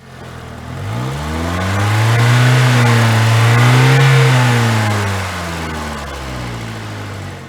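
Saturn car engine running, its pitch and loudness climbing over the first two seconds, highest about four seconds in, then easing back down.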